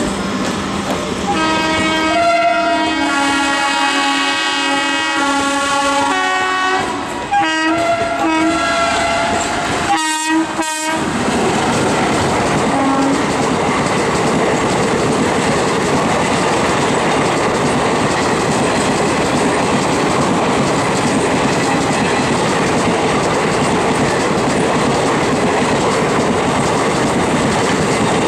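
WAP-4 electric locomotive's horn sounding one long blast that drops in pitch about six seconds in, then a few short toots. After that the express's coaches rush past at high speed, with wheels clattering over the rail joints.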